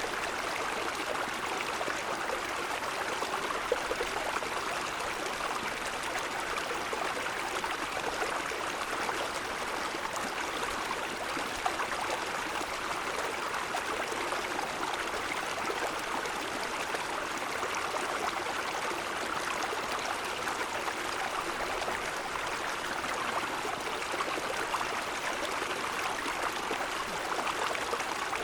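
Small mountain stream flowing over snow-covered stones: a steady rush of running water with a light splashy trickle.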